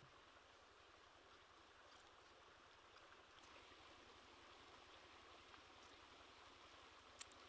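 Near silence: a faint, steady outdoor hiss, with two small clicks near the end.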